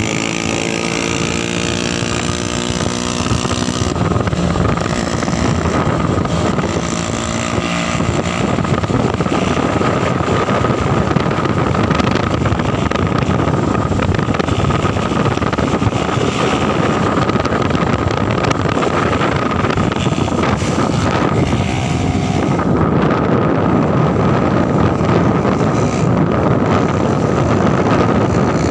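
Motorbike engines running while riding along a road, with wind rushing on the microphone. A close engine hum is plain in the first few seconds, then mostly steady rushing wind and road noise with a thin whine.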